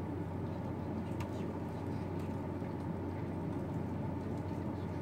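Steady low room hum with a few faint clicks of keyboard keys as text is typed.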